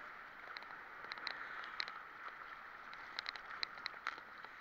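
Sea water sloshing against a waterproof action-camera housing at the surface, with a steady wash broken by scattered small crackling ticks of drops and bubbles.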